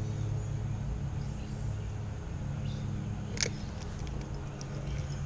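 Steady low rumble of flowing creek water, with one sharp click about three and a half seconds in.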